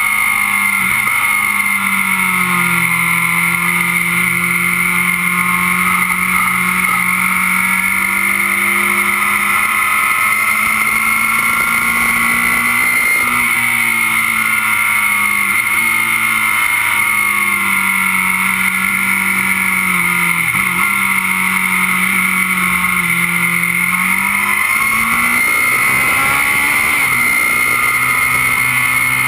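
Kawasaki Z750's inline-four engine at track speed, heard close from a camera on its crash bung, under constant wind rush. The engine note falls over the first couple of seconds, holds steady for long stretches with a few brief dips, and rises again in the last few seconds.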